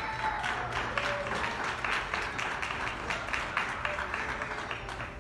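Audience applauding, many hands clapping in a dense patter that thins out near the end.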